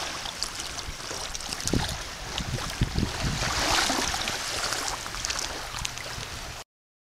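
Footsteps on beach sand, a thump about every second with small crunching clicks, over a steady hiss of light wind and gentle surf that swells briefly in the middle. The sound drops out completely for a moment near the end.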